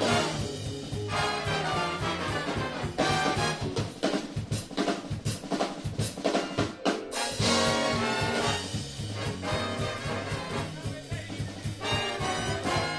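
Jazz big band playing live: trumpets and trombones over a drum kit, in full ensemble.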